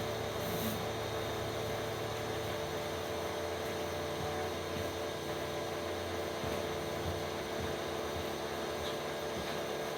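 Pressure washer running, a steady drone under the hiss of the high-pressure spray, with a slight shift in the low hum about a third of the way in.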